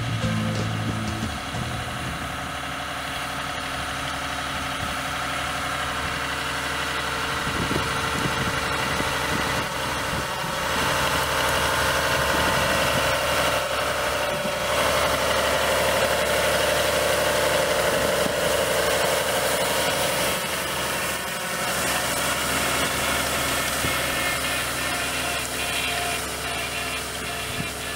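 Fiat 110-90 tractor's diesel engine running steadily as it pulls a Claas Liner rotary hay rake through cut hay. It grows louder as the tractor comes close, about halfway through, then eases off.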